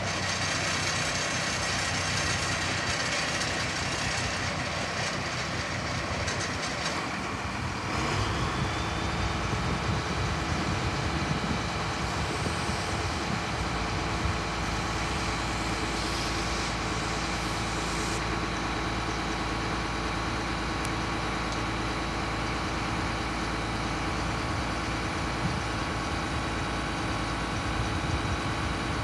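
1991 International asphalt patch truck's engine running steadily while its hydraulics tip the hopper body up. A steady high whine rises in about eight seconds in and holds.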